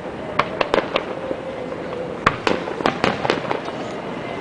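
Fireworks display going off: an irregular series of sharp bangs and pops, several in quick succession, the loudest a little past two seconds in.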